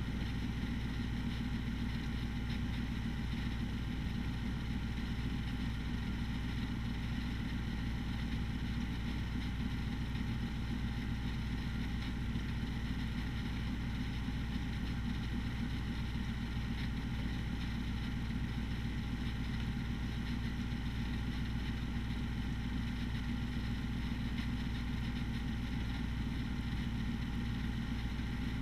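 Steady roar of thunderstorm wind and heavy rain, continuous and unchanging, with a strong low rumble of wind on the microphone and no thunderclaps.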